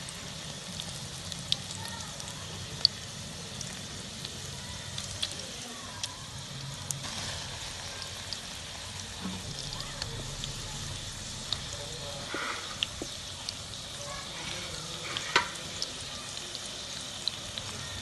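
Chicken rolls shallow-frying in a little oil in a pan: a steady sizzle scattered with sharp pops of spitting oil, two of them louder, about three seconds in and about fifteen seconds in.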